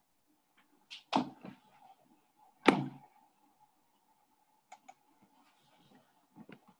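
Several sharp knocks and clicks, the loudest a thump about two and a half seconds in, with a quick double click a couple of seconds later, over a faint steady hum.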